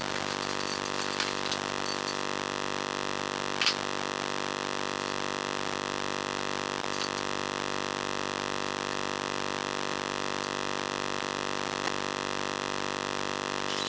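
A steady electronic drone of many held tones that does not change, with a few faint clicks over it, the loudest about three and a half seconds in.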